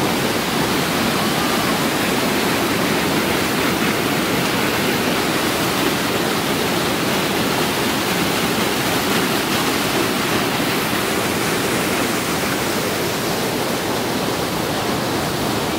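Loud, steady rush of water falling at a mountain waterfall.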